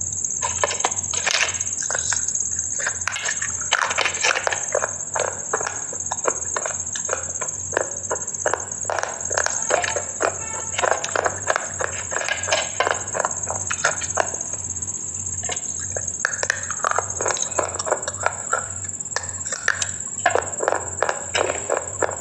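Close-miked crunching and chewing of hard, brittle baked clay: dense, sharp crunches in quick succession, with busier stretches now and then. A steady high whine runs underneath.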